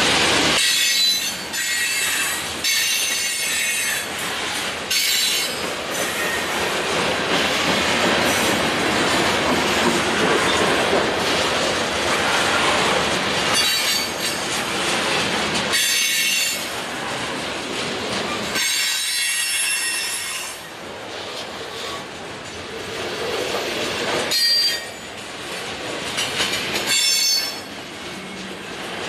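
Freight train cars rolling past with a steady rumble of wheels on rail. High-pitched wheel squeal breaks out again and again, about seven times, each lasting a second or two.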